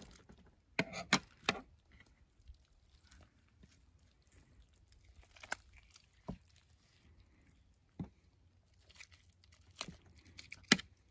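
Aluminium foil, wrapped three or four layers thick, crinkling and tearing as it is pulled open: a few sharp crackles about a second in, then scattered fainter ones.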